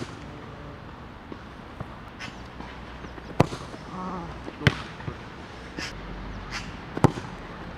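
Football being struck and bouncing: three sharp thuds about three and a half, four and a half and seven seconds in, with a couple of fainter knocks between them.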